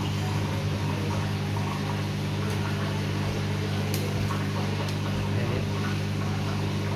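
A steady low hum with an even hiss over it, and a couple of faint ticks.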